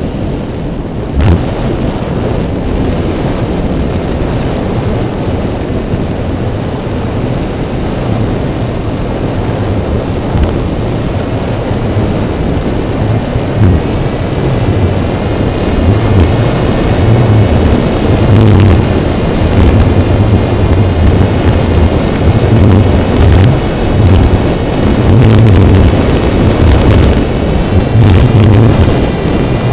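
Drone's motors and propellers whirring, heard through its onboard camera's microphone, with wind buffeting the microphone in a heavy, gusty rumble. A thin steady whine comes in about halfway through as the noise grows louder.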